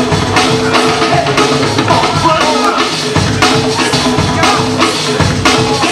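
DJ-played breakbeat music with a steady, driving drum beat under a repeating pitched riff.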